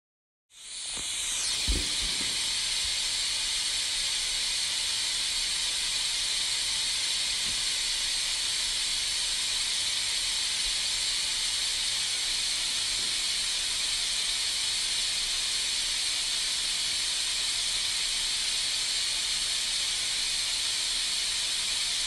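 Steady white-noise hiss that fades in quickly about half a second in and then holds at one level, with a brief low thump shortly after it starts.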